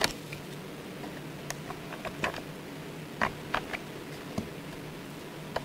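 Scattered light plastic clicks and taps, about a dozen at irregular intervals, from hands handling an EPOMAKER DynaTab 75X mechanical keyboard and lifting small plastic cover pieces off it. A faint steady hum runs underneath.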